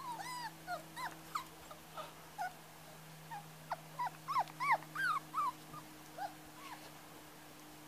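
Five-week-old puli puppies yipping and whining in many short, high calls, thickest about four to five seconds in, then dying away. A faint steady hum lies beneath.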